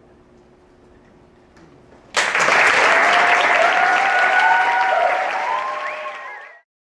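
Audience applauding, breaking out suddenly about two seconds in, with cheering voices rising and falling over the clapping; it cuts off abruptly near the end.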